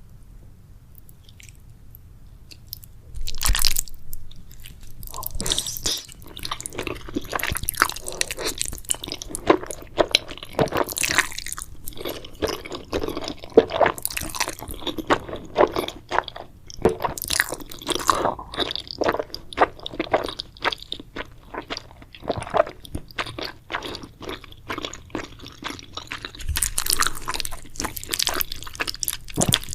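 Close-up eating sounds: someone biting into and chewing crunchy food, a dense run of crackling crunches that starts about three seconds in with a loud first bite.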